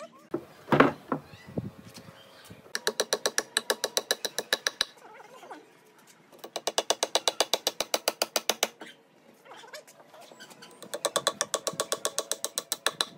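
Claw hammer driving nails into a log joint: three quick runs of even, ringing blows with short pauses between them. One louder knock comes about a second in.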